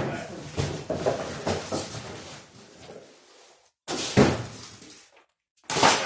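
Packaging being lifted off a large steel tool cabinet: a thump, then knocks and rustling. Two short bursts of rustling noise follow, about four and six seconds in.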